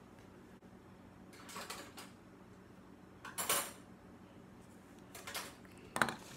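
Four brief scraping and clicking handling sounds from a liquid concealer tube and its wand applicator. The loudest comes about halfway through, and a sharp click comes near the end.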